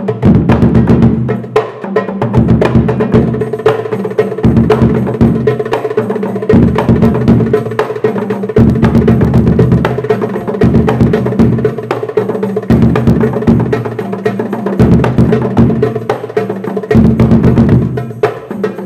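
Hadroh percussion: a large bass frame drum struck with felt mallets, a tam and a darbuka played by hand together in a fast, dense rhythm. The booming bass pattern repeats about every two seconds.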